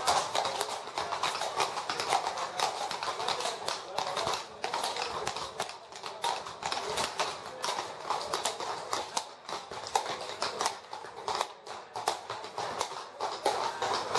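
Horses' hooves clip-clopping on a stone-paved street as ridden horses pass, with onlookers chattering.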